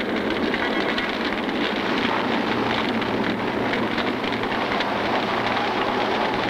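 A large building fire burning: a steady rushing noise thick with crackling.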